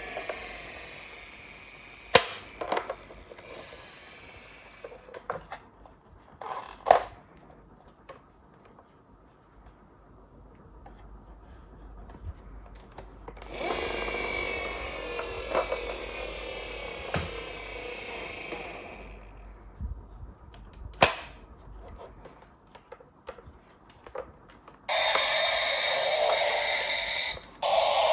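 Toy ambulances being handled and run: stretches of whirring that glide in pitch, sharp plastic clicks and knocks, and, near the end, a loud electronic toy siren sound.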